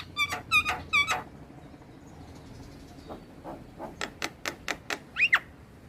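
Javan myna singing: a quick run of about five harsh, ringing notes, a short pause, then a string of sharp clicking notes that ends in two quick rising whistles.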